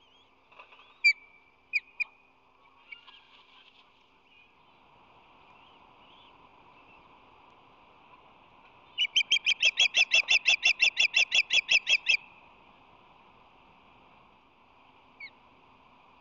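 Osprey calling: a few single sharp chirps about a second in, then a rapid, even series of about twenty loud, high whistled chirps lasting about three seconds.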